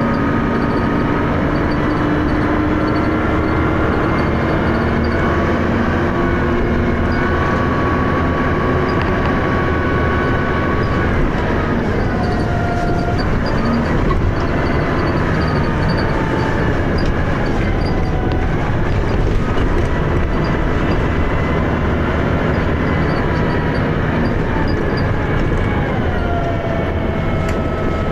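Dennis Arrow double-decker bus under way, its engine running steadily with a rumble, its whining tones sliding down in pitch a few times as the ZF automatic gearbox changes gear.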